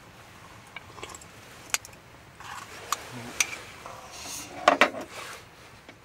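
Light clinks and knocks of utensils against dishes or cookware, with some rustling: sharp clinks about once a second, the loudest two close together near the end.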